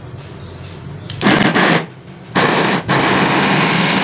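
Electric food chopper's motor and blades running in pulses, coarsely chopping onion, garlic, ginger and green chillies. It starts about a second in with two short bursts, then makes a longer run near the end.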